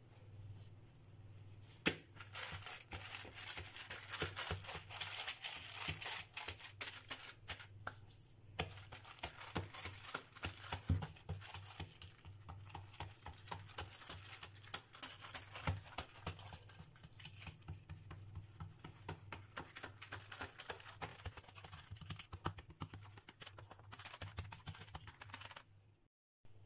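Baking paper crackling and crinkling under hands as they press and spread dough flat on it: a dense run of sharp crackles that starts with a loud click about two seconds in and eases off near the end, over a low steady hum.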